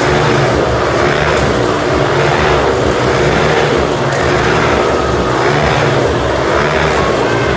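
Motorcycles circling inside a steel mesh globe of death, engines running hard, the sound swelling and fading about three times every four seconds as they lap.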